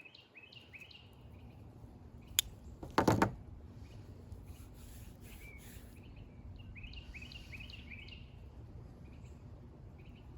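Outdoor ambience with a small bird singing a quick series of repeated chirps twice, over a low steady background noise. A sharp click and a short knock come about two to three seconds in.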